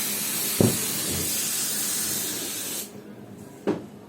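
Steady hiss of rushing air that cuts off suddenly about three seconds in, with a dull thump near the start and another near the end.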